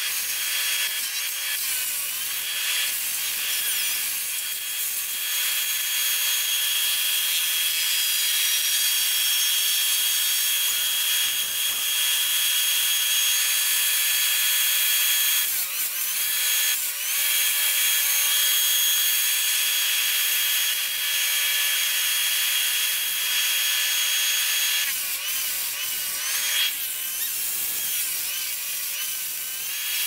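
Tree-removal power equipment running steadily: a constant whine over a high hiss, with short dips in level a little past halfway.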